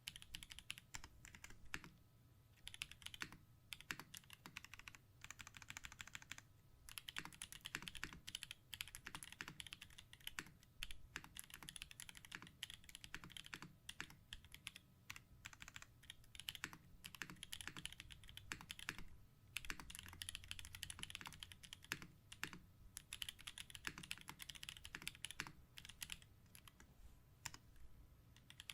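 Typing on a TGR Jane V2 mechanical keyboard with Holy Panda tactile switches: a quick, continuous run of key clacks, broken by a few short pauses.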